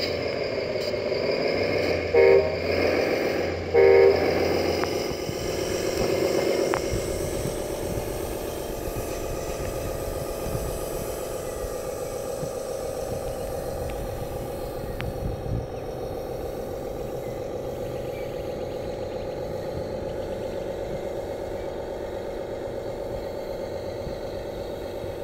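An RC model's electronic sound module: two short horn toots about two and four seconds in, over a steady simulated diesel engine note that wavers in pitch during the first few seconds and then holds steady.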